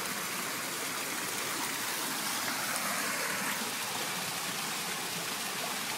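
Torrential rain falling on a swimming pool and patio, with rainwater spilling over the pool's rock edge into the water: a steady rushing hiss.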